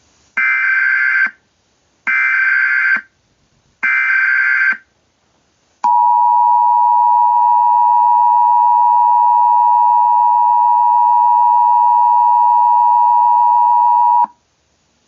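Emergency Alert System tones: three short bursts of the digital SAME header, each about a second of shrill warbling buzz with a pause between them. Then the EAS two-tone attention signal comes on, a steady dual-pitched tone held for about eight seconds that cuts off abruptly. This is the standard start of a new emergency alert.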